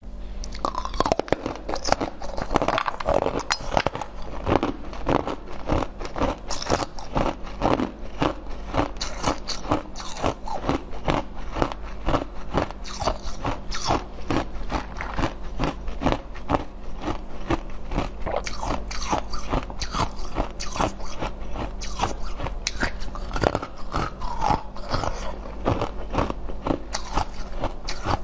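Close-miked biting and chewing of frozen jelly: a dense, continuous run of sharp crunches and crackles.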